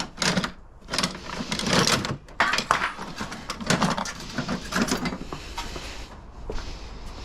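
Rustling, clicking and light clatter of handling noise as tools and objects are rummaged through, likely a search for a knife; busy for about the first five seconds, then quieter.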